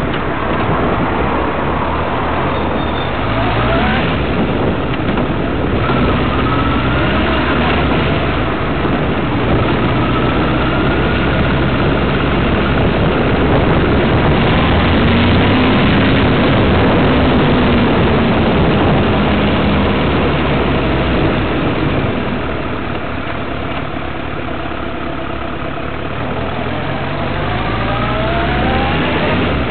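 Vehicle engine running under a dense rush of road and wind noise while riding through slow city traffic. The engine note rises and falls gently, is loudest around the middle and drops back a little later on.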